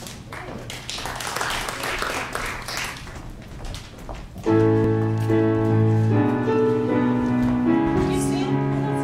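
Audience applause, then about four and a half seconds in a small theatre band with keyboard comes in loudly with the opening of a show tune, playing held chords that shift every second or so.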